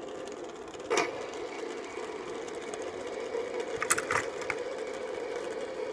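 Fidget spinners whirring steadily on their ball bearings while they spin on a tabletop. A sharp knock comes about a second in, and a few quick clicks come at about four seconds.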